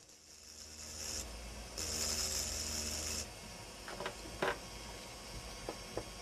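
Hand-held rotary engraving drill running, its burr grinding into crystal glass: a steady motor hum with a grinding hiss in two stretches over the first three seconds. A few light clicks follow in the second half.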